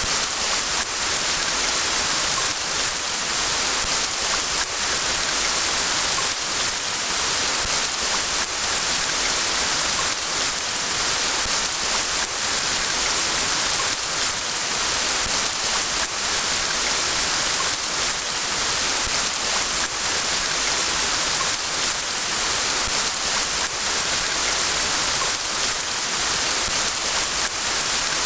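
Rain falling steadily: an even hiss with a faint patter of individual drops.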